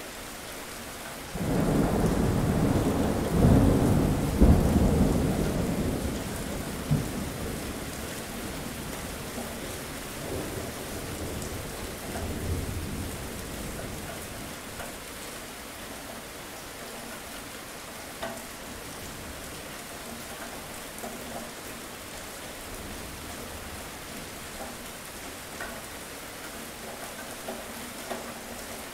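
Steady rain falling during a thunderstorm. A clap of thunder breaks in about a second and a half in and rumbles loudly for several seconds before fading. A softer roll of thunder follows a few seconds later.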